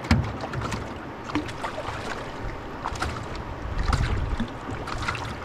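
Irregular knocks, thumps and clatter against the hull of a canoe, with a hard thump right at the start and another about four seconds in.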